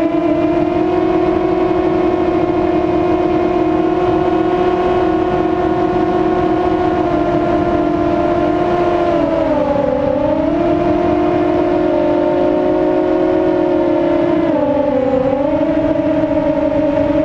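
FPV racing quadcopter's brushless motors and propellers whining, heard from the onboard camera. The pitch holds steady, then dips and recovers twice, about ten and fifteen seconds in, as the motors slow and speed up again.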